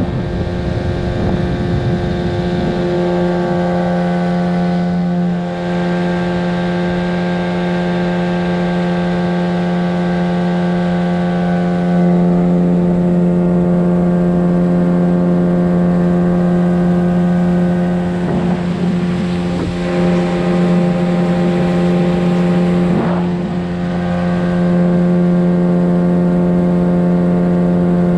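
Boat motor running at a steady cruising speed under way, with bursts of wash and wind noise now and then.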